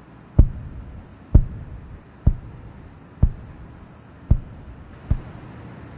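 Heavy footsteps of leather work boots, six deep thuds about a second apart.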